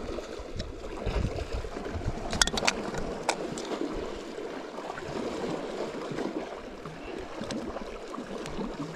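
Small sea waves washing against the rocky shore, a steady wash of water. A few light clicks sound about two to three seconds in.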